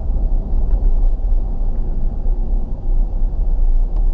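Car cabin noise while driving: a steady low rumble of road and engine noise heard from inside the car.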